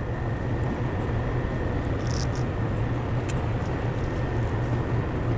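Steady low machine hum of kitchen background noise, with a faint high steady whine and a few light clicks.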